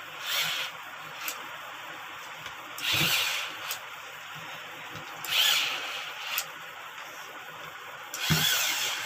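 Handheld capping machine's head running in four short bursts, each about half a second, as it is pressed onto four plastic bottle caps to push their tamper seal rings down.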